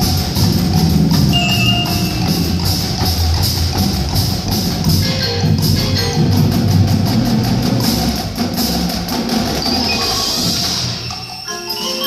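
Marching band playing a dark-themed show piece: full ensemble with drums, wood block and mallet percussion such as marimba, xylophone and chimes. The music thins out briefly near the end.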